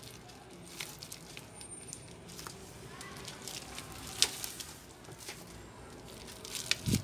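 Scattered small clicks and crackles from a plastic pry card being worked under the edge of a phone's cracked display, separating the screen from its adhesive. The sharpest click comes about four seconds in, with a few more near the end.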